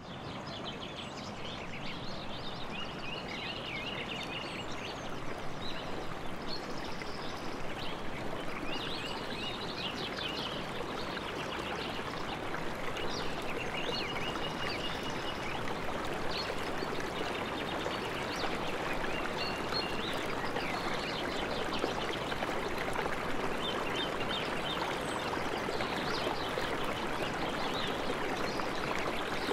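River water running steadily, with birds chirping and singing over it.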